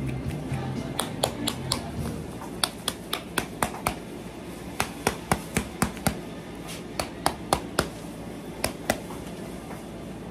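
Plastic seasoning shaker shaken over a mixing bowl: short runs of sharp, quick clicks as it is shaken, several runs in a row.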